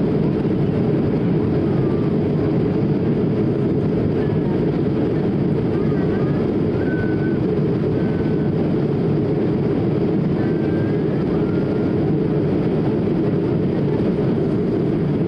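Steady low rushing cabin noise of an Airbus A220-300 in flight, heard from a window seat: the airflow over the fuselage and the hum of its Pratt & Whitney PW1500G geared turbofan engines, unchanging in level.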